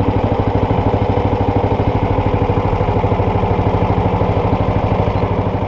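Small fishing boat's engine running steadily with a fast, even throb.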